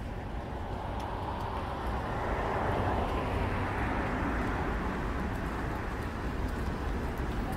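A vehicle passing on a city street: its noise swells over a couple of seconds and fades again, over a steady low rumble of traffic.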